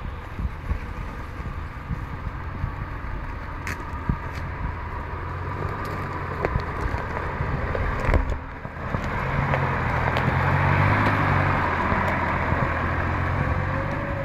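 A 4WD's engine running at low revs as it crawls over a rutted dirt track, with brush and twigs cracking against the vehicle. A sharp crack comes about two-thirds of the way in, and the engine then grows louder as it passes close.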